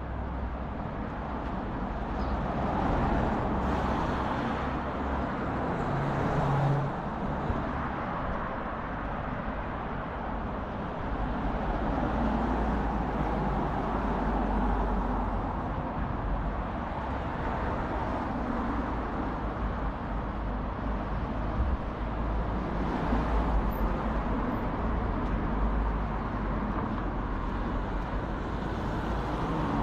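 Town street ambience with road traffic: cars passing on the street over a steady low rumble, swelling louder a few seconds in and again a little after the middle.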